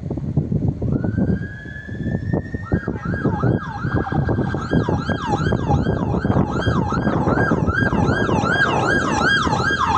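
Police car siren starting with a rising wail, then switching about three seconds in to a fast, repeating up-and-down warble, over a low rumble of road traffic.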